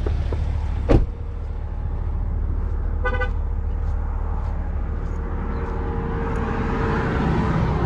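A vehicle engine idling with a steady low rumble. A sharp knock comes about a second in, and a short car horn chirp about three seconds in.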